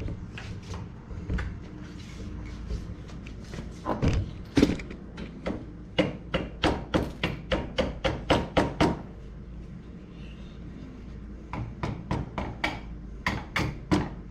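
Runs of sharp taps or knocks, about four a second, during assembly with screws: a steady run in the middle and another near the end.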